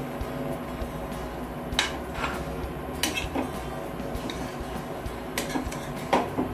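Steel spatula stirring and scraping greens and chicken in a steel kadhai, with irregular metal-on-metal clinks against the pan; the loudest come a little under two seconds in and again about six seconds in.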